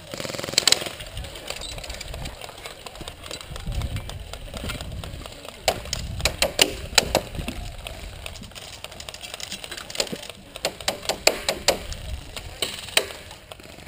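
Airsoft gunfire: clusters of sharp, rapid cracks and clicks, a short one just after the start, then longer runs in the middle and again near the end, over a low rumble.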